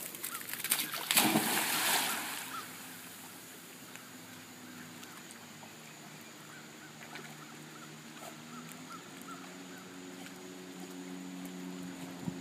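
A retriever splashing into the water about a second in, then quiet water with a low steady engine hum that grows a little louder near the end.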